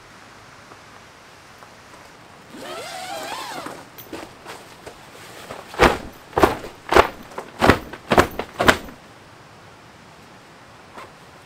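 Fabric window cover of an inflatable air tent being handled and folded back: a brief wavering squeak about three seconds in, then about seven sharp flaps and knocks in quick succession over some three seconds.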